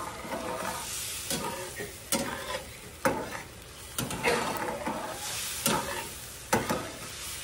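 Metal slotted spatula stirring sliced onions in a simmering beef-bouillon gravy in a skillet, knocking against the pan roughly once a second over a low sizzle.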